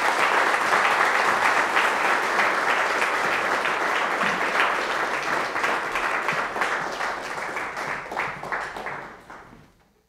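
Audience applauding, a dense clapping that thins out and fades away near the end.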